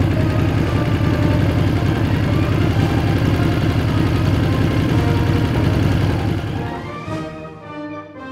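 Engines of a group of motorcycles passing in formation, a loud low rumble, with brass music playing over it. About six and a half seconds in, the engine noise fades and the music carries on alone.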